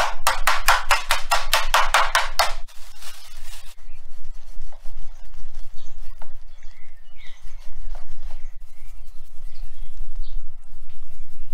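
A wooden meat mallet pounds a steak through plastic wrap on a plastic cutting board: quick, even blows at about five a second that stop about two and a half seconds in. A brief rustle follows.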